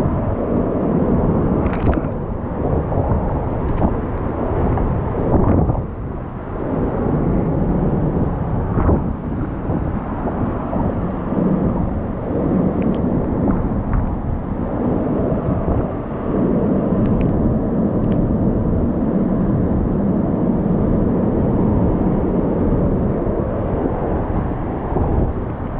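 Hurricane-force wind in a hurricane's eyewall, a loud, deep, continuous rush that surges and eases in gusts and buffets the microphone.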